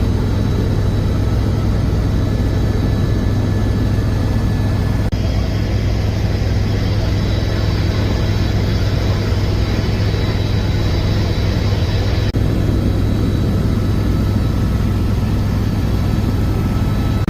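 Helicopter engine and rotor running at a steady, loud drone, heard from inside the cabin in flight.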